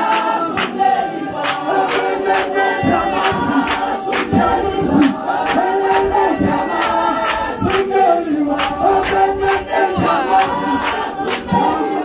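A group of voices singing together in unaccompanied choral harmony, with a steady beat of sharp claps.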